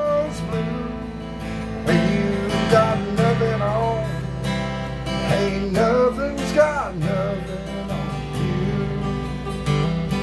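Acoustic guitar strummed steadily in a country song, with a man's singing voice over it that slides between notes through the middle.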